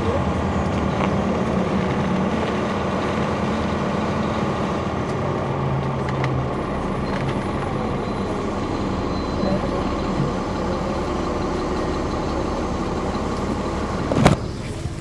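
2009 NABI 40-SFW transit bus's Caterpillar C13 diesel engine and ZF Ecomat automatic transmission running under way, heard inside the cabin from the rear seats as a steady drone that drops in pitch partway through. Near the end there is one sharp, loud knock, the loudest sound here.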